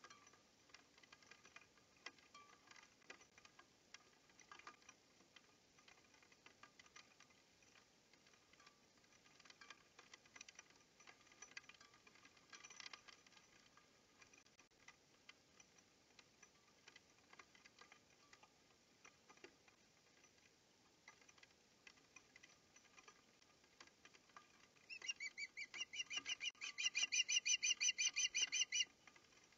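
Faint scattered clicks, then near the end a loud, fast series of high chirping calls from an osprey at its nest, lasting about four seconds.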